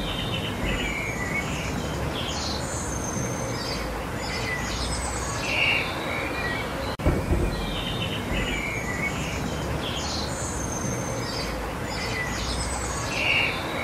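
Several small birds chirping and trilling over a steady low background rumble. The same stretch of about seven seconds plays twice, with a brief dropout between the two.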